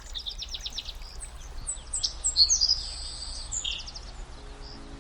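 Songbirds chirping and trilling, a quick run of notes at the start and a busier cluster of calls in the middle, over a low steady background rumble.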